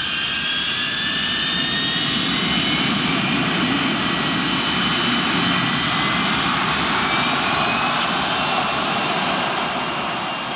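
Jet aircraft engines running: a steady rushing noise with thin high whining tones that climb slowly in pitch. It begins to fade near the end.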